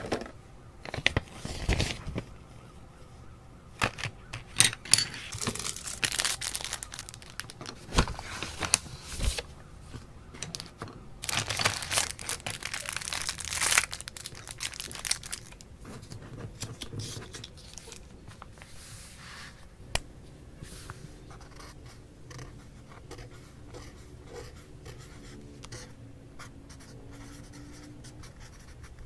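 Clear plastic blister packaging being pulled open and handled, crackling and crinkling in loud irregular bursts through the first half; after that, quieter handling with scattered small clicks and taps.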